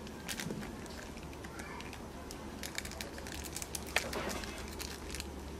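Foil snack packet crinkling and crackling as a macaque pulls and bites at it: quick irregular crackles that grow busier and louder in the second half.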